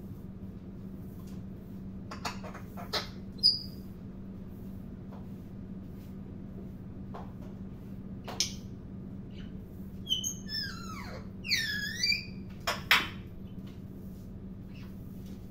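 African grey parrot making scattered squeaks and clicks, then a run of short swooping whistles that fall in pitch about ten to twelve seconds in, with a steady low hum underneath.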